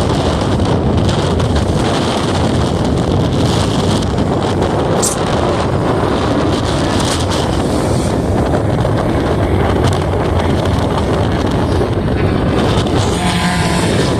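Heavy wind noise buffeting the microphone over the steady sound of a Volkswagen Gol race car running.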